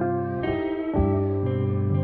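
Background guitar music, plucked notes held and changing every half second or so.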